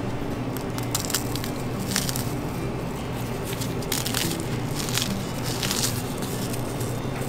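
Chocolate sandwich cookies crumbled by gloved hands, cracking and crunching in several short bursts, over a steady low hum.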